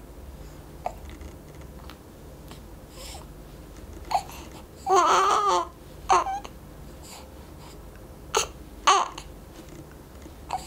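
Four-week-old baby hiccuping: about half a dozen short, sharp hiccups a second or two apart, with a brief fussy, wavering cry about five seconds in.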